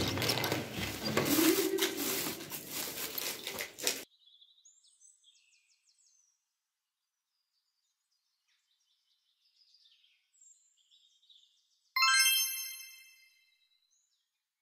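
A plastic shopping bag rustling against a door as its handle is worked, for the first four seconds or so; then a few faint chirps, and about twelve seconds in a single bright chime that rings out over a second and a half.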